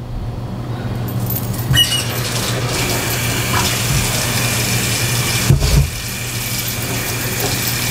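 Sink tap running, the water coming on about two seconds in and then pouring steadily while hands are washed under it, with a brief thump about five and a half seconds in.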